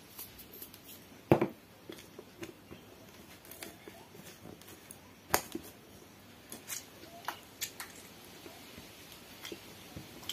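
Scattered light clicks and taps, two of them sharper, from a plastic salt shaker and fingers mashing roasted tomato with chopped onion in a small stainless steel plate.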